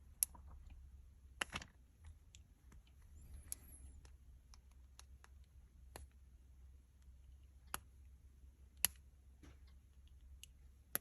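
Plastic Lego bricks clicking and knocking, about seven sharp separate clicks at irregular spacing over a low steady hum.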